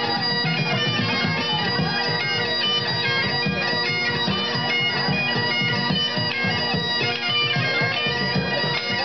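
Great Highland bagpipe playing a tune: a steady drone under a melody of changing notes on the chanter.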